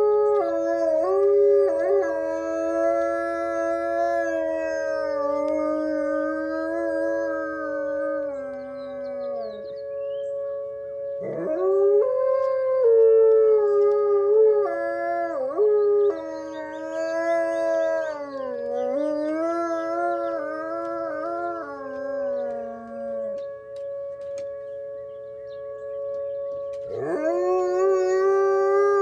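Wolfdog howling, long drawn-out howls that waver in pitch and sink away at the end, three in a row with a fresh one starting near the end, answering an outdoor warning siren that holds a steady two-note tone underneath.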